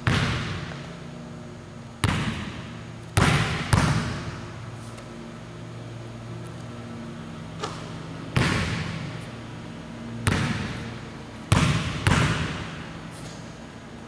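Basketball bouncing on a hardwood gym floor: about eight separate loud thuds, each trailing a long echo through the large empty gymnasium.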